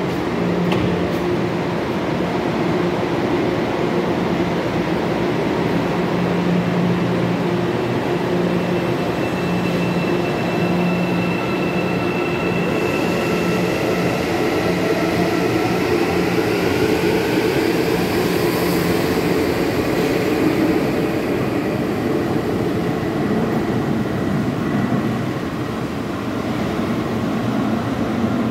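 Hyundai Rotem série 2000 electric multiple unit pulling away from the platform. A steady low hum and rail rumble give way, from about halfway, to the IGBT-VVVF traction inverters whining in several tones that rise together as the train speeds up.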